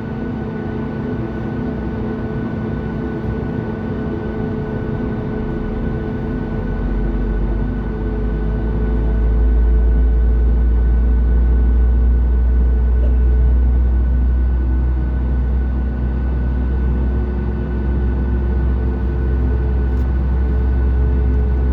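Cabin sound of a Boeing 737 MAX-8 with CFM LEAP-1B engines: a steady hum with several constant tones. About seven seconds in it grows louder with a deep rumble as engine thrust increases.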